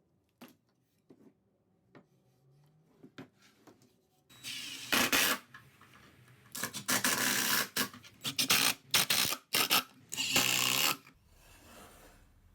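Wood being scraped or rasped by hand: a few light clicks, then a run of irregular scratchy strokes from about four seconds in, which die away near the end.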